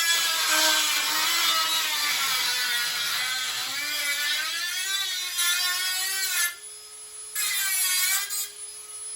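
Dremel rotary tool grinding out spot welds in sheet steel, a high whine that wavers and climbs in pitch as the load changes. It eases off about six and a half seconds in, bites again briefly, then runs with a lighter, steady whine.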